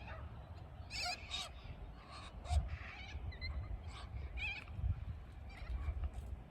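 Birds calling: a scatter of short chirps and squawks with a wavering pitch, over a low rumble.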